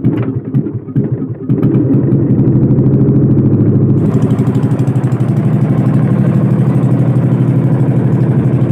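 Small engine of an outrigger fishing boat: uneven for the first second or so, then running steadily with a fast, even chug. A faint hiss joins about four seconds in.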